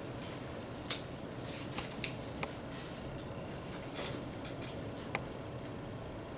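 Steady room hum in a quiet classroom, with half a dozen short clicks and rustles scattered through it from pencils and paper as students write.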